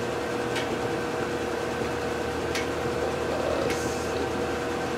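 Dry-erase marker writing on a whiteboard, heard as a few brief scratchy strokes, about a second apart and then a longer one near the end, over a steady mechanical hum with several held pitches.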